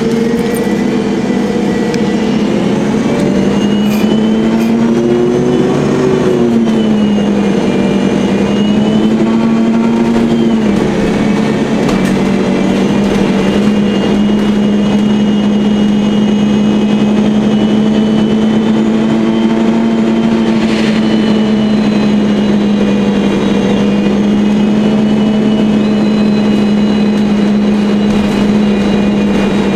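A MAN natural-gas (CNG) articulated city bus driving, heard from inside the passenger cabin, with a steady engine-and-drivetrain drone. The drone's pitch rises and falls over the first ten seconds or so, then holds level.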